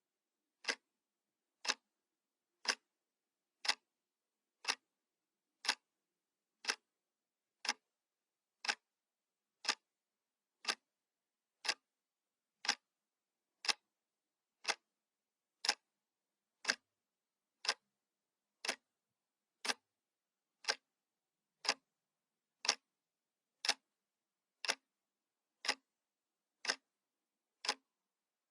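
Analog clock ticking once a second: sharp, even clicks with dead silence between them.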